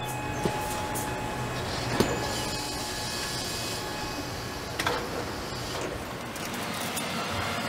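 Truck chassis assembly-line machinery running with a steady mechanical hum, broken by sharp metallic clanks about half a second in, at two seconds (the loudest), and a quick double clank near five seconds.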